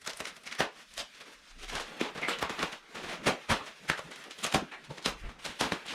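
Irregular handling noises: a quick, uneven run of sharp clicks and knocks with short rustling scrapes, as the Sur Ron electric bike and its packaging and parts are handled.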